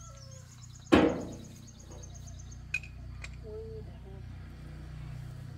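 A single loud metallic clang about a second in, ringing briefly as it dies away, over the steady low hum of an idling engine.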